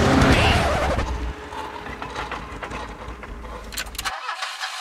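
A car driving past, loud for the first second and then fading away.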